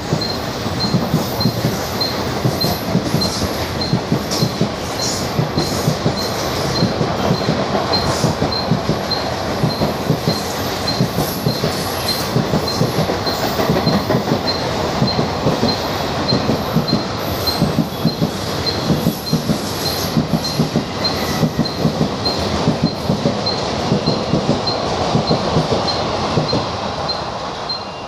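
Indian Railways express train's passenger coaches running fast past, a loud steady rush of wheels on rails with rapid clickety-clack knocks over the rail joints. It fades near the end as the last coach passes.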